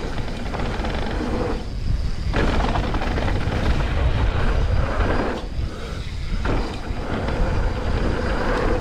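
Mountain bike riding down a dirt trail: wind rumbling on the camera microphone under the hiss and rattle of tyres and bike. The rolling noise drops out briefly twice, about two seconds in and again around six seconds in.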